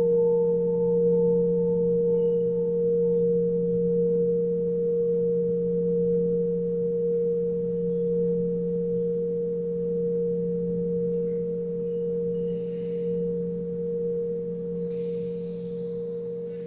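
Tuned metal pipe ringing on with two steady low tones that fade slowly, while a higher pulsing overtone dies away in the first few seconds. Faint hissing comes in twice near the end.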